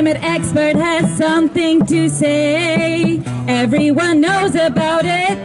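A woman singing a melody into a microphone over strummed acoustic guitar, holding a long note with vibrato about two seconds in.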